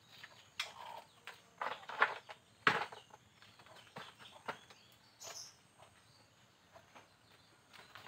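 Scattered rustles and knocks of someone moving about on foot, the loudest knock about two and a half seconds in, with a brief high-pitched sound a little after five seconds.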